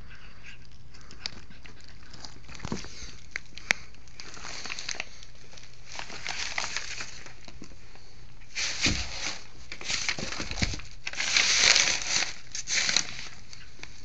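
A cat chewing and tearing at a slice of ham. Scattered small clicks come first, then a run of louder bursts in the second half, loudest near the end.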